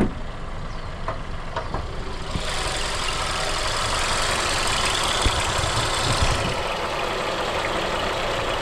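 Nissan car engine running with a steady low rumble. A louder rushing noise comes in from about two seconds in until about six seconds. The intermittent noise the owner blames on a failing belt tensioner is not occurring.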